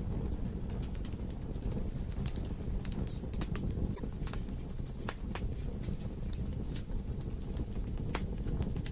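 Wood logs burning in a fireplace: a steady low rumble of the flames with irregular sharp crackles and pops, several a second.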